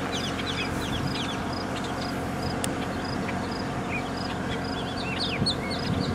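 Small birds chirping: a short high note repeats about twice a second among quick gliding chirps, over a steady low hum.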